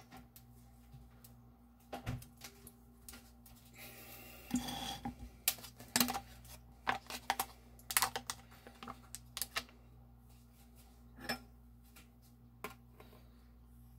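Irregular light clicks and taps of a red plastic food container and its lid being handled over a plate, with a short rustling burst about four seconds in and a faint steady hum underneath.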